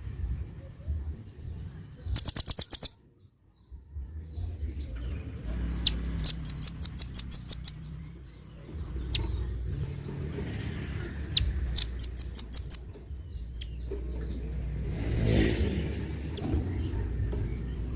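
Velvet-fronted nuthatch calling: three quick runs of harsh, high chip notes, about ten to a second, each run lasting about one to one and a half seconds, over a low steady background rumble.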